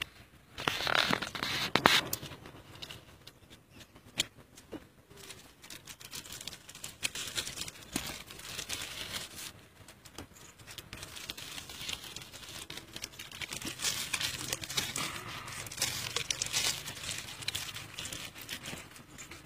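Clear plastic grafting film crinkling and rustling in the hands in irregular bursts, loudest about a second in and again past the middle, as it is handled and wrapped around the graft joint.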